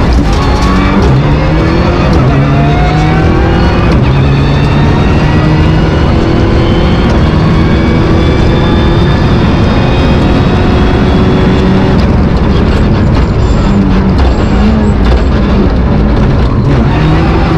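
Rally car engine heard from inside the cockpit under full throttle, climbing in pitch through several quick upshifts, then holding one long slow climb in a high gear. In the last few seconds the throttle comes off and the engine blips up and down through downshifts for a corner.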